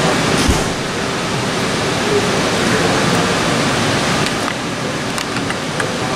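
Steady, dense hiss of room noise with a faint murmur of indistinct voices, and a few light clicks in the last two seconds.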